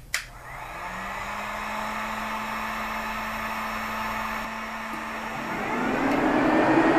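A heat gun clicks on and blows steadily with a low hum. About five and a half seconds in, the electric radiator cooling fans spin up with a rising whir and grow louder: the thermostatic fan controller has switched them on as its heated temperature probe reached the set point.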